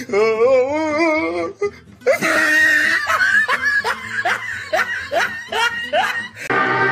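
A wavering drawn-out vocal sound for about a second and a half, then a long run of short rising laughs. Music comes in near the end.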